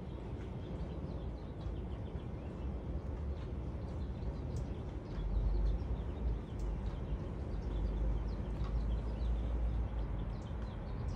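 Outdoor background noise: a low rumble that gets heavier from about halfway, with faint short bird chirps scattered through it.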